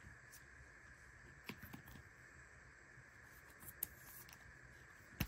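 Near silence, with a few faint plastic ticks and rustles as a trading card is slid into a clear plastic sleeve.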